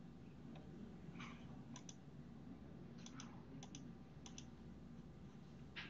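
Faint computer mouse clicks, about nine, several in quick pairs, over a low steady hum.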